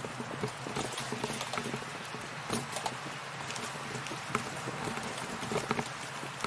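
Bicycle tyres rolling over an unpaved gravel path, with irregular crunching clicks from the loose stones, several a second, over a steady rolling noise.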